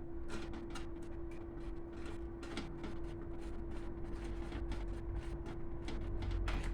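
Irregular small clicks and knocks of hands working on a diesel heater's fuel pump and fuel pipes, over a steady low hum.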